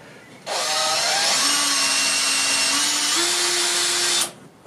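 Small electric drill running for about four seconds while boring an eye hole, its whine stepping up in pitch twice before it cuts off.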